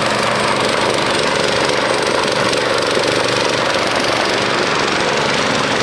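Small engines of homemade mini tractors running steadily, loaded as the tractors strain against each other on a tow rope.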